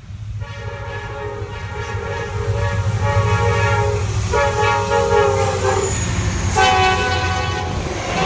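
Norfolk Southern diesel freight locomotive blowing its air horn in three blasts: a long one starting about half a second in, a shorter one, then a third near the end. Under the horn the locomotive's engine rumbles, and the train gets louder as it approaches and passes.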